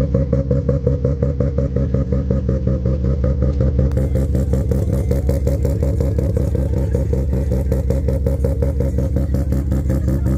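Modified sports car's engine idling as the car rolls slowly. The exhaust gives a loud, steady note with a rapid, even pulsing and no revving.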